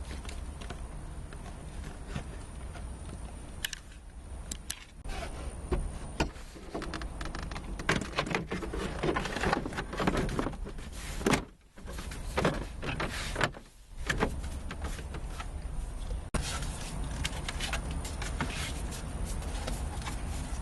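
Plastic dashboard trim and parts being handled and fitted back into place: irregular clicks, knocks and rattles over a steady low hum.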